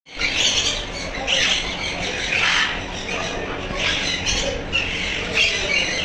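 Parrots in an aviary screeching and squawking, with harsh calls coming roughly once a second.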